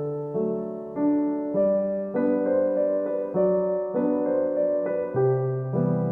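Background music: slow, gentle electric piano playing sustained chords and notes, with a new note struck about every half second to second.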